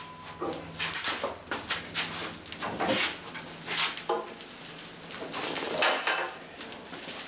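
Irregular clanks, knocks and rattles of a Mudmixer concrete mixer being turned around by hand.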